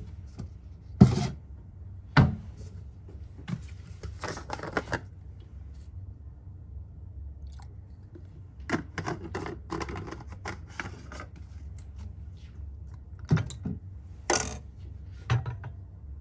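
Glass test tubes clinking and knocking against a wire test-tube rack as they are handled and lifted out: several sharp single clinks, with two longer spells of light rattling.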